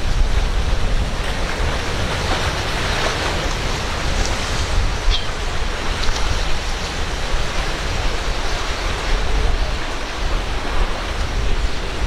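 Steady rush of surf and breaking waves, with wind rumbling on the microphone.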